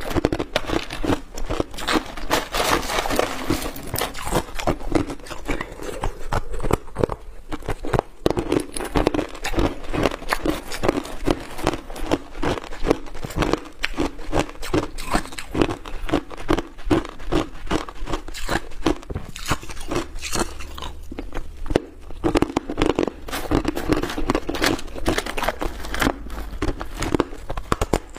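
Hard ice chunks crunched and chewed in the mouth, close to a clip-on microphone: a rapid, unbroken stream of sharp cracking crunches.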